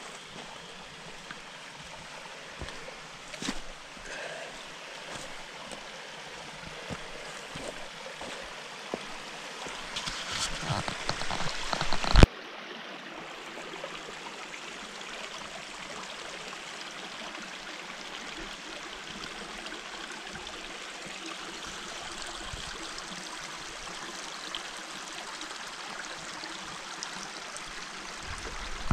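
Steady rushing of a mountain creek cascading over rocks. It grows louder about ten seconds in, then drops back abruptly a couple of seconds later and runs on steadily.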